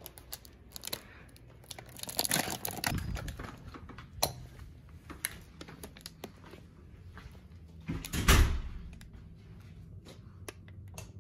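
Paper bakery bag rustling and crinkling in hand, with scattered clicks and a hotel room door opening a couple of seconds in and shutting with a heavy thump about eight seconds in.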